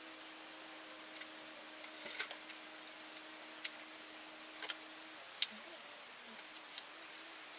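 Scattered sharp clicks and light taps from hands working on a new folding bicycle and its packing as it is unboxed, with one louder click about five and a half seconds in.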